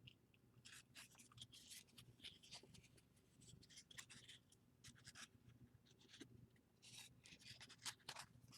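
Faint rustling, sliding and flicking of baseball trading cards being handled and sorted through by hand, many small scratchy clicks.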